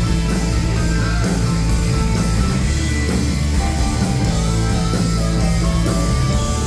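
Rock band playing live: electric guitars with held, sustained notes over bass and drums.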